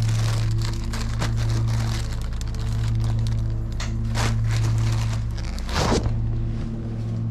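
A clear plastic bag crinkling and rustling as it is handled, over background music of sustained low tones. About six seconds in, a louder brushing rustle comes as a jacket sleeve sweeps across the microphone.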